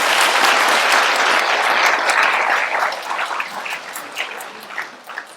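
Audience applauding, full and dense at first, then thinning out to scattered separate claps over the last two seconds or so.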